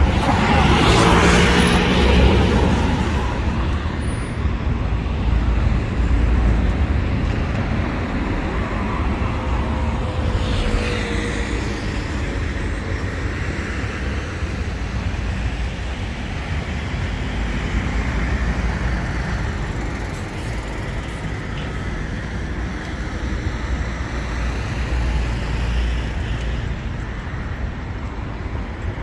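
Road traffic going by: a steady rumble of cars and buses, with one vehicle passing close right at the start and another about ten seconds in, its pitch dropping as it goes past.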